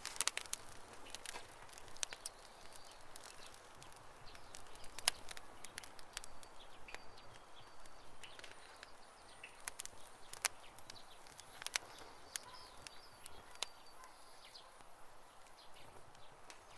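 Campfire crackling: irregular sharp pops and snaps from burning wood over a soft steady hiss, the loudest pops about five seconds in and near ten and twelve seconds.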